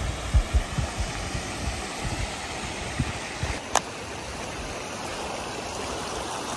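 Low thuds, about two to three a second, fade out over the first couple of seconds, typical of a hiker's footfalls carrying to a body-worn microphone. A steady rushing hiss runs underneath, with one sharp click near the middle.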